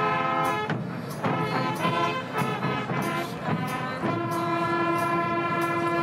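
Brass music: several brass instruments holding sustained chords that change every second or so, with short drum-like strokes through it.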